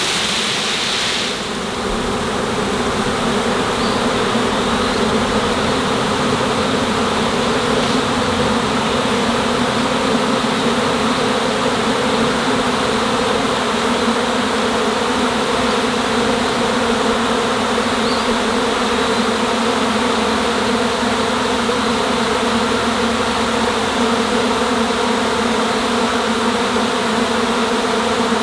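A honeybee swarm buzzing in a dense, steady hum, thousands of bees flying after being shaken loose from their cluster. A brief noisy rustle sounds in the first second.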